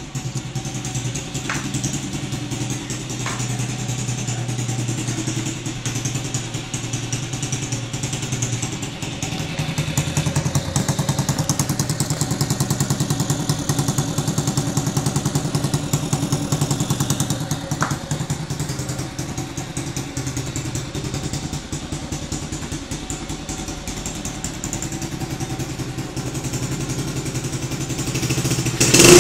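Honda Biz C100 single-cylinder four-stroke engine, fitted with a CG 125 carburettor and an aftermarket 'estralador' exhaust, idling steadily. The idle comes up a little about ten seconds in and settles again, and the throttle opens into a loud rev at the very end.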